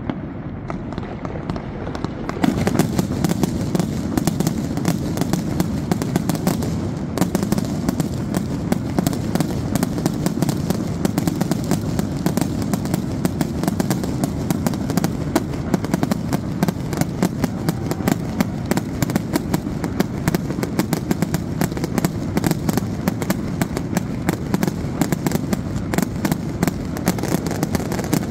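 Aerial fireworks going off in a rapid, continuous barrage of bangs and crackles with a steady rumble beneath. The barrage gets louder and denser about two and a half seconds in.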